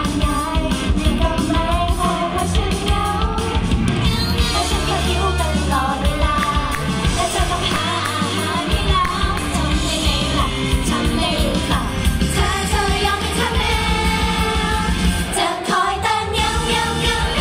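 Female idol group singing a pop song live into handheld microphones, with loud pop music with a steady beat playing through the stage speakers.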